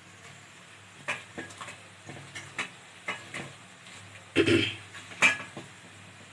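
Spoon and pot clinking as pakoras are added to the boiling kadhi: a series of light clinks and knocks, with a louder clatter about four and a half seconds in and a sharp clink just after.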